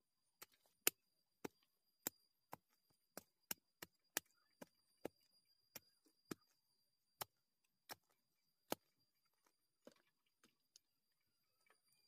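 A wooden-handled digging tool chopping repeatedly into soil around a clump of chive roots, sharp separate strikes about two a second that thin out after about nine seconds.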